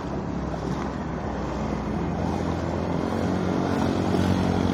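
A motor vehicle's engine running as it drives through floodwater, over a steady noise of water and road. About three seconds in, the engine note grows louder and fuller.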